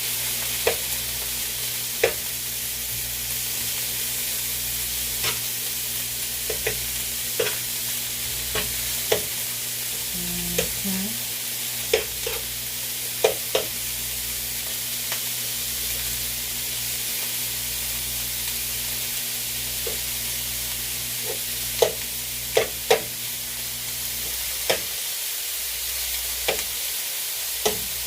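Shaved steak, onions and peppers frying in olive oil in a skillet: a steady sizzle, with a utensil clicking and knocking against the pan now and then as the food is stirred.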